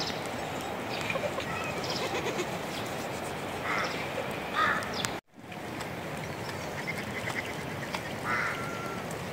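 A resting flock of sheep and goats, with a few short bleats over a steady background hiss. The sound drops out for an instant about five seconds in.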